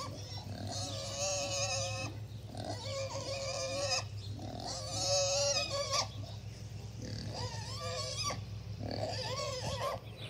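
Kunekune pig squealing in five long, drawn-out calls of about a second each, with short pauses between them.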